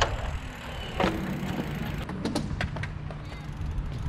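Small wheels rolling on concrete skate-park ramps, with several sharp clacks of impacts, over a steady low rumble.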